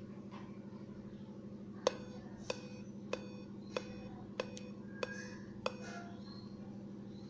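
Dell Inspiron 5521 laptop clicking at startup: seven sharp clicks, each with a short ring, about two-thirds of a second apart, starting about two seconds in. A steady low hum runs underneath.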